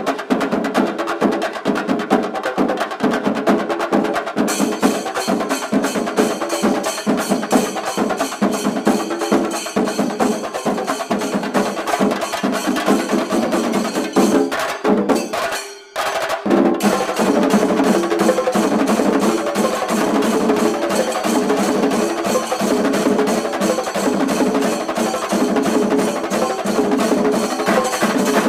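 Fast, dense drumming with sharp, clicky stick strokes, played as percussion-led music. It breaks off for a moment a little past halfway and then starts again.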